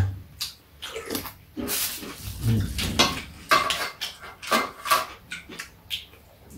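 Two people eating fried chicken off aluminium foil on a metal tray: chewing and lip-smacking, crinkling foil and a spoon clinking on the tray, heard as a string of short, irregular clicks and rustles.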